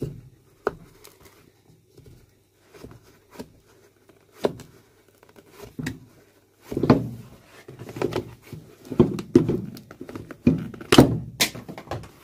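A nailed-on shoe heel block being levered off with a blade: irregular knocks, clicks and scrapes of steel working against the heel and its nails. The knocks are sparse at first and come thicker and louder from about halfway through, as the heel gives way.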